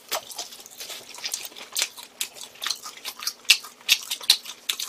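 Close-miked chewing and mouth smacking while eating braised pig's trotters: an irregular run of sharp, wet clicks, several a second.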